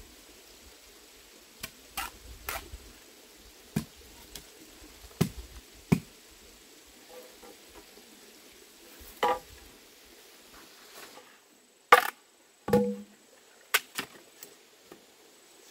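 Bamboo poles being struck and knocked: about a dozen irregular sharp knocks, a few with a short hollow ring. The loudest come near the end.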